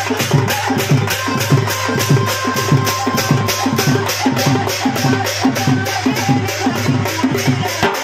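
Dhol, a double-headed barrel drum played by hand, beating a fast, even rhythm of about five strokes a second over a steady held drone.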